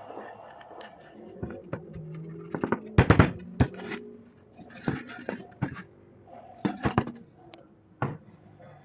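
Wooden workpieces being handled, with sharp knocks and clicks and some rubbing. The loudest knocks come in a cluster about three seconds in and again about seven seconds in.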